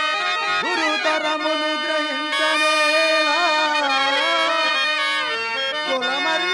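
Harmonium playing a slow melody of long held notes, with ornamented glides in pitch, as the musical accompaniment of a Telugu verse drama.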